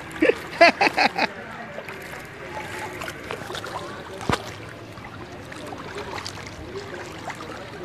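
Floodwater in a street sloshing and splashing steadily. Near the start a person's voice rings out in a few short, loud calls, and a single sharp click comes about four seconds in.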